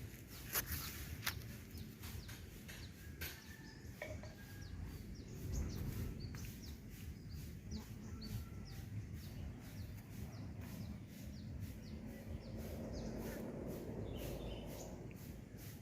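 Small birds chirping repeatedly over a steady low background rumble, with a few sharp clicks in the first few seconds.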